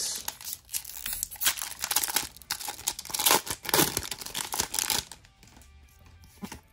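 Foil wrapper of a Pokémon card booster pack being torn open and crinkled by hand, with a rapid crackle for about five seconds that then drops away.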